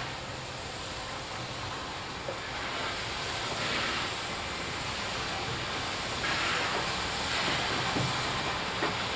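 R class 4-6-4 steam locomotive R766 and its train passing at low speed: a steady rushing noise that grows louder as it nears, with a few louder surges.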